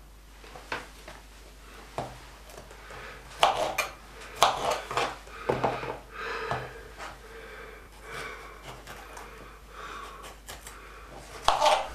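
Kitchen knife cutting bell peppers on a plastic cutting board: irregular knocks and taps of the blade on the board, the loudest near the end.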